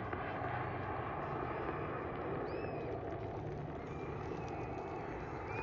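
Steady drone of an airplane engine, with a couple of short high chirps over it.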